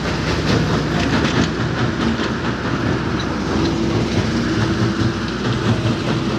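Heavy diesel machinery running close by, a steady low rumble with a rattling clatter; a steady hum joins in about halfway through.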